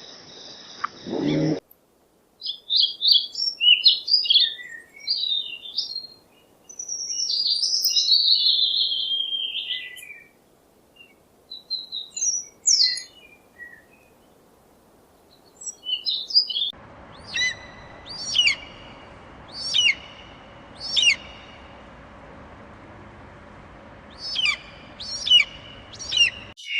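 Birds calling: a run of chirps and warbling notes, then, after a cut, short sharp calls repeated about once a second over a steady background hiss. A deeper animal sound ends just at the start.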